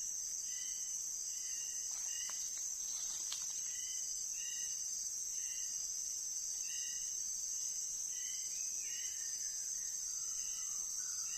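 Steady high-pitched insect drone with a white-rumped shama giving short repeated calls about once a second, and a long falling whistle near the end.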